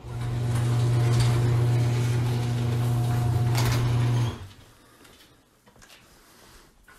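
A steady, loud mechanical drone, like a motor or engine running at a constant speed, that cuts off suddenly about four seconds in. A single sharp click follows near the end.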